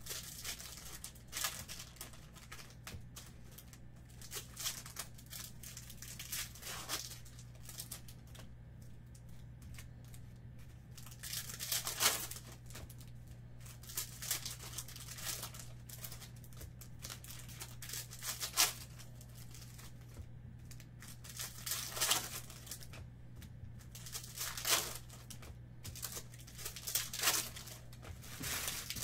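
Foil wrappers of Topps Chrome baseball card packs being torn open and crinkled by hand, in a string of short, sharp crackles, the loudest about twelve and eighteen seconds in.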